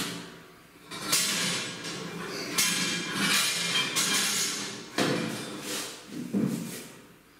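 Stainless-steel bars and frame knocking together as they are handled, several clanks, each ringing on after the hit.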